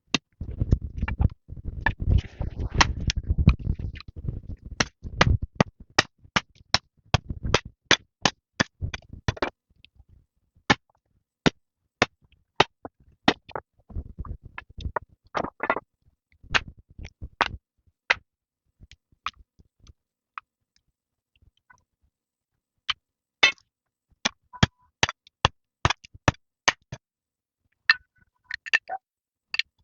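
A long series of sharp knocks or strikes, about two a second for a stretch near the start, then irregular, with a pause of a few seconds past the middle. A low rumble sits under the first few seconds.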